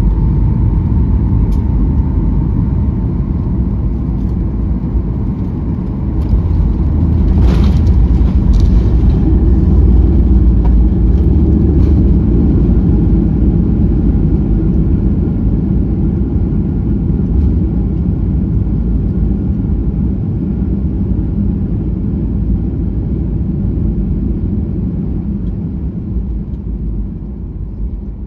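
Cabin sound of a Boeing 737-800 heard from a window seat behind the wing during touchdown and rollout. A steady rumble of engines and airflow steps up about six seconds in, and a sharp thud comes a second or so later with a second knock just after, as the wheels meet the runway. The loudest rumble follows for a few seconds as the jet decelerates, then eases off steadily while it rolls out.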